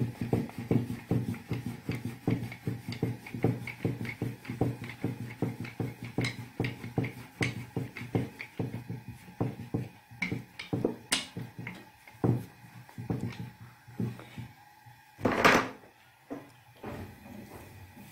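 Rolling pin knocking and rolling on a wooden board as paratha dough is rolled out, about three quick strokes a second, thinning out after about ten seconds. About fifteen seconds in there is a single louder scuffing burst.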